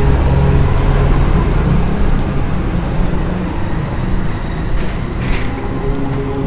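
Street traffic, a steady low rumble of motor vehicle engines on the road close by, with two short hissing noises about five seconds in.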